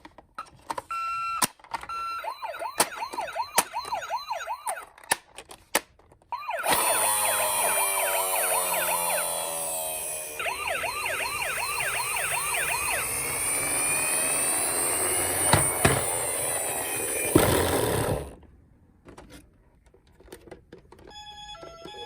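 Electronic sirens of toy ambulance and police minicars, several wailing quickly up and down at once. They are faint at first, loud from about six seconds in, and cut off suddenly about eighteen seconds in. A few clicks are heard, and near the end there are faint electronic beeps.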